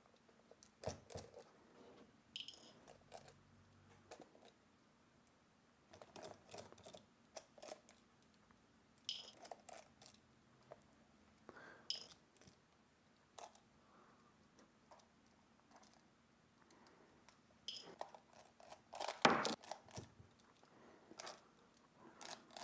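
Small metal parts and tools of a camera lens being taken apart, clicking and clinking on a desk in scattered, irregular taps, a few with a brief metallic ring; the loudest knock comes about three seconds before the end.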